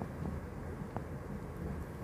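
London Underground Northern line train (1995 Stock) running, heard from inside the carriage: a steady low rumble with a couple of faint sharp clicks from the wheels on the track.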